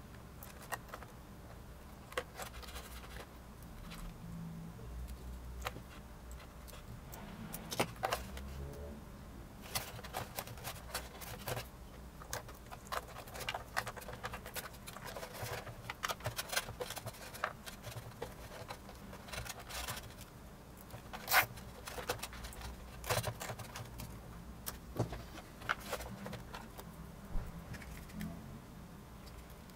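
Small plastic clicks and rustling as hands handle RC wiring: red and black leads with plastic plug connectors being fitted together and plugged into a radio receiver. One click about two-thirds of the way through is sharper than the rest.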